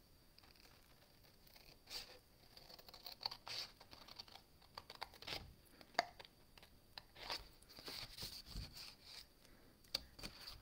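Scissors cutting through cardstock in a string of short, crisp snips, with the sheet rustling as it is handled.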